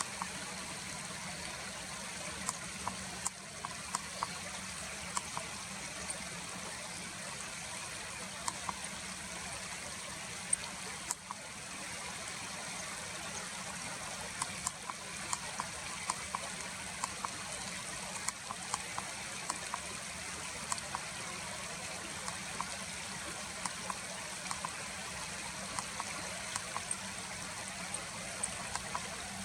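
Steady running water of a stream, with scattered brief faint ticks.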